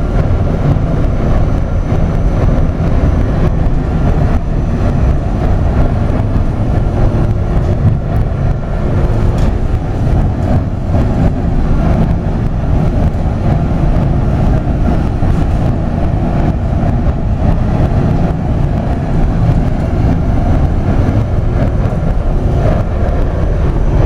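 HaiQi biomass sawdust burner firing: a loud, steady low roar that holds without a break.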